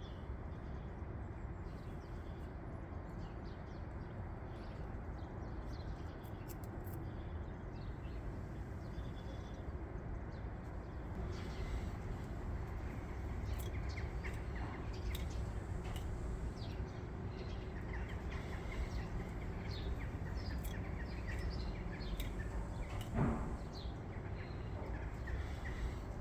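Steady outdoor background noise with faint, scattered bird chirps, and one brief louder sound near the end.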